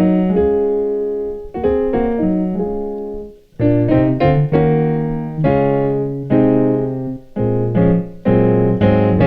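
Piano playing a gospel chord movement of the kind used to finish a song: small chords struck and held, one moving into the next. The chords break off briefly about three and a half seconds in, then start again.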